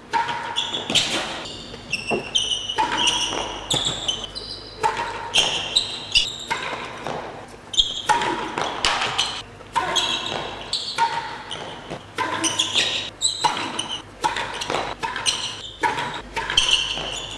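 Real tennis play: the solid ball knocking again and again off the rackets, the court walls and the wooden penthouse roof, at an irregular pace, with short high squeaks in between. Each knock echoes in the enclosed court.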